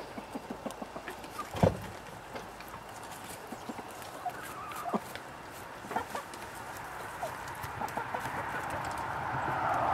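Hens clucking softly, with scattered short calls and many small clicks. One sharp knock about one and a half seconds in is the loudest sound.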